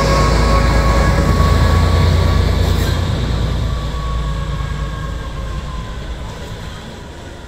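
Vintage diesel locomotive passing close and then pulling away: a heavy low engine rumble with a thin high whine, fading steadily after about three seconds as it recedes.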